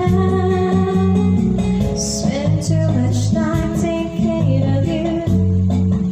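A woman singing into a handheld microphone over a backing track with guitar.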